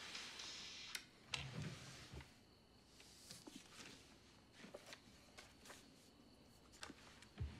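Quiet room with faint scattered clicks, rustles and a few soft low knocks of small objects being handled.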